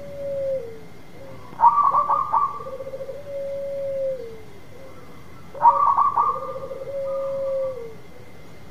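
Zebra dove (perkutut) singing its cooing song twice, about four seconds apart: each phrase opens with a quick cluster of short higher notes, then a rolling, trilled coo that ends in a long held note falling away.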